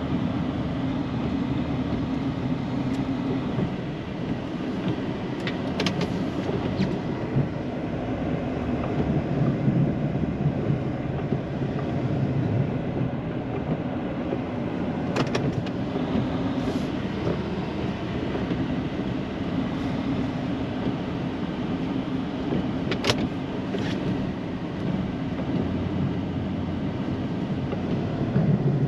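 Snowplow truck's engine running steadily under load while plowing, with a few brief sharp clicks.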